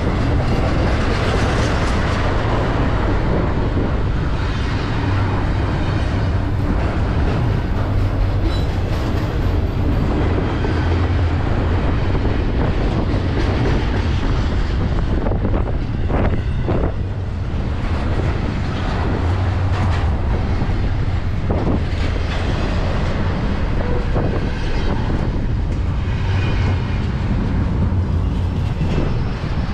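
Double-stack intermodal container freight train rolling past at close range: a steady low rumble of wheels on rail, with a few sharp clicks and clanks from the passing cars partway through.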